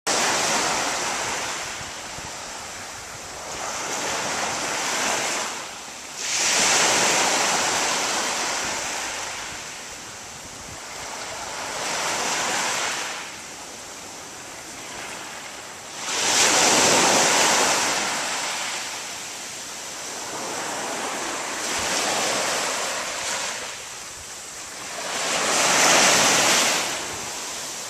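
Small surf breaking and washing up a sandy beach, swelling and ebbing every few seconds, with three larger waves breaking about ten seconds apart.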